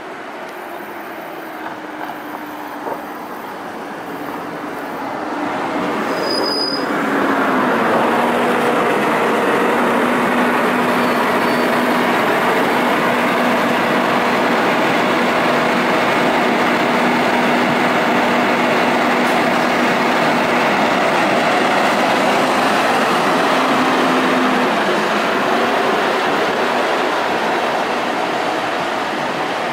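Scania N280UB city bus with a compressed-natural-gas engine pulling in, louder as it nears, with a brief high squeal as it comes to a halt. It then idles at the stop with a steady low hum, and the engine note rises near the end as it moves off.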